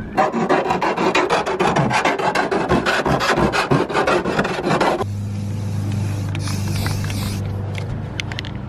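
Hand file rasping along the freshly cut edge of a van's sheet-steel roof, deburring the hole in quick back-and-forth strokes. About five seconds in, the filing stops abruptly and a steady low hum takes over.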